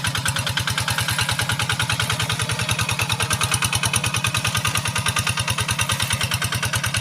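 Kubota RD85 single-cylinder diesel engine running steadily with an even, rapid beat of about ten strokes a second.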